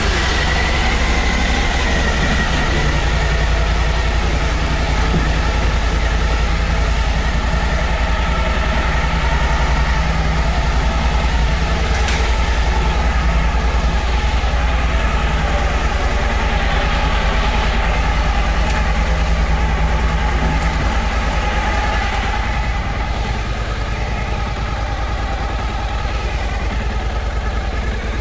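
Suzuki V-Strom DL1000's V-twin engine idling steadily, freshly started and still cold, warming up. It gets a little quieter after about twenty seconds.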